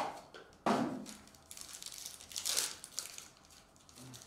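Foil wrapper of a Contenders Optic football card pack crinkling and crackling as it is handled and torn open by hand. Sharp crackles come at the start and again within the first second, with another stretch of crinkling past the middle.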